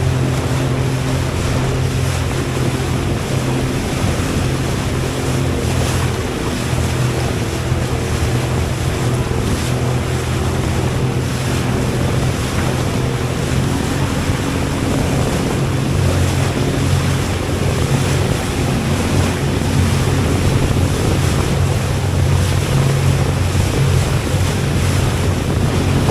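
Jet ski engine running at speed, its pitch shifting a few times as the throttle changes, over rushing water and wind buffeting the microphone.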